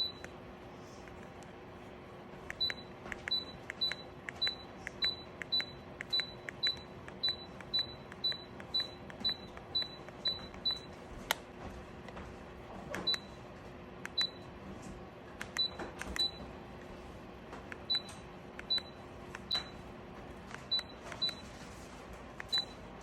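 Electronic control panel of a portable ceramic space heater beeping as its buttons are pressed: a click and a short high beep about twice a second for some eight seconds, then scattered single and paired beeps, over a faint steady hum.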